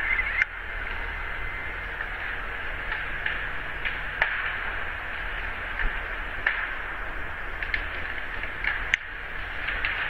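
Steady electronic hiss from a surveillance webcam's microphone, with a low mains hum and scattered faint clicks.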